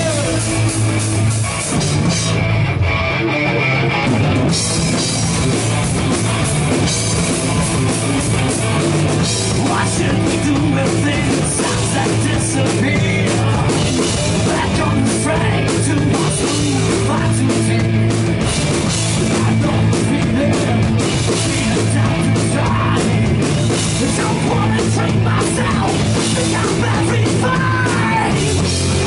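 Heavy rock band playing live at full volume: distorted electric guitars over a driving drum kit and bass, dense and loud throughout.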